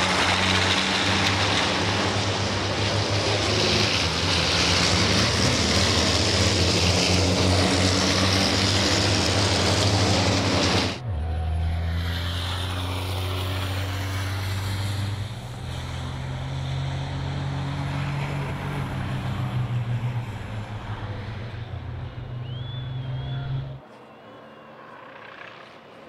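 Two racing trucks' diesel engines running hard at speed, with a loud rushing noise over the engine drone. About eleven seconds in, the sound cuts suddenly to a quieter, steadier drone, which drops away abruptly near the end.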